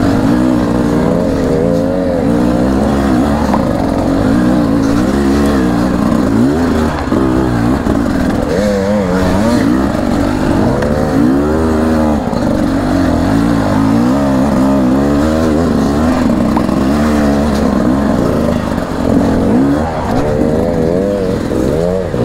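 Enduro dirt bike engine revving hard and constantly changing, its pitch swooping up and down every second or so as the throttle is worked through rough, technical terrain.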